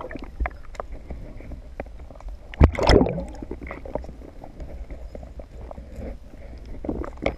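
Water heard underwater through a GoPro's waterproof housing: a steady low rumble with scattered small clicks and ticks, and one louder rush of water about three seconds in.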